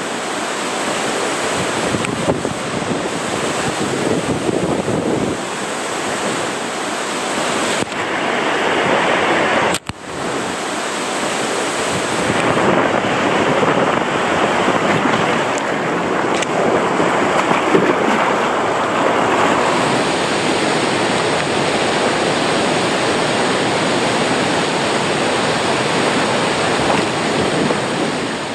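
Water rushing and a two-person inflatable tube sliding down a ProSlide Tornado funnel waterslide, heard from a camera riding in the tube: a steady rushing with wind on the microphone. It cuts out for a moment about ten seconds in.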